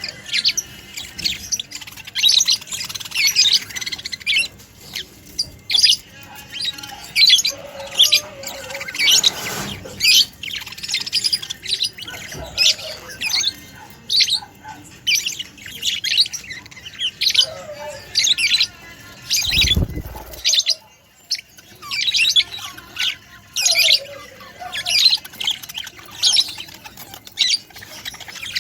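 Budgerigars chirping and chattering in a rapid run of short, high calls. A brief low thump comes about two-thirds of the way through.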